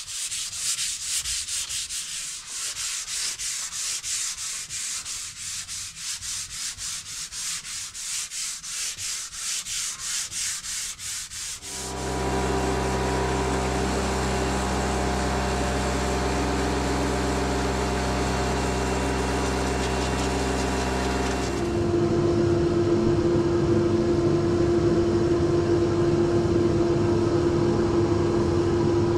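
Hand-sanding an ironbark board: quick, even back-and-forth rubbing strokes. About twelve seconds in, a steady machine drone takes over, and it changes tone at about twenty-two seconds.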